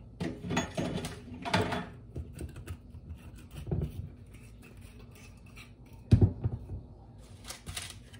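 Kitchen handling noises: a few rustles, scrapes and knocks of containers and utensils being moved about, with one sharp knock about six seconds in.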